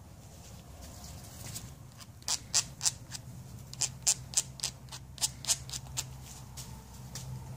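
A quick series of about a dozen short, sharp squeaks in small groups: gloved fingers working anti-seize compound onto machine screws. A steady low hum runs underneath.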